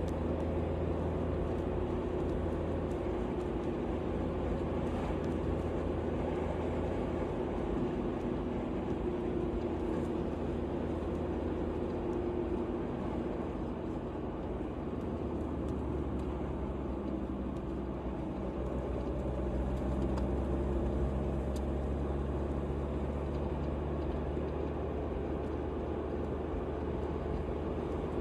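Steady motor-vehicle engine hum and road noise, the engine note shifting to a lower, stronger hum about halfway through.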